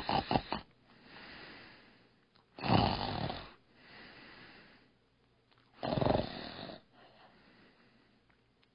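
A person snoring: three loud snores about three seconds apart, each followed by a quieter, longer breath out.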